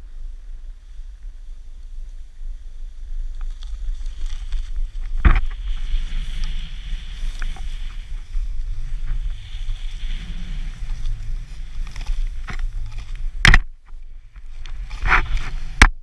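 Wind rumbling on an action camera's microphone as a snowboard rides down through deep powder snow, with the hiss of the board in the snow. A sharp knock about five seconds in and two louder ones near the end.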